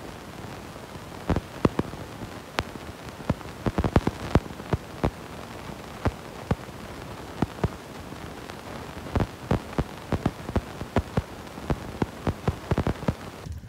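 Mountain bike rolling over a rough dirt track: a steady hiss of tyre and air noise under frequent, irregular sharp knocks and rattles as the bike hits bumps.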